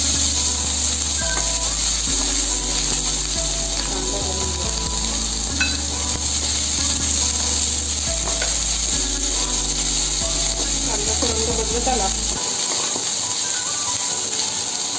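Mustard seeds sizzling in hot oil in a steel kadhai: a steady frying hiss with a few sharp pops. Under it, the low hum of an induction cooktop switches on and off in steps and stops about twelve seconds in.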